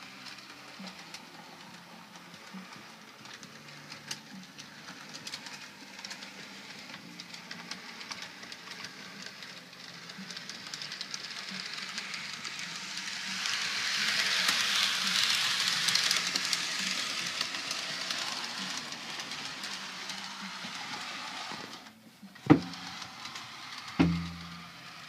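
HO-scale Walthers F40PH model locomotive running along the track, its wheels and motor making a steady running noise that grows louder as it passes close, then fades. Near the end come two sharp knocks.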